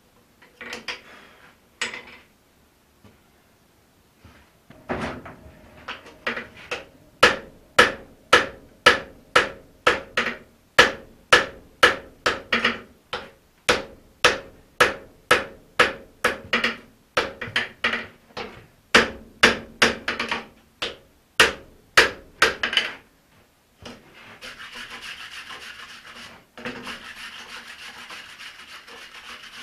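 Hand hammer striking a red-hot axe head on the anvil in steady blows, about two a second, forging the felling axe to its final shape. About 24 seconds in, the blows stop and a steady hiss takes over.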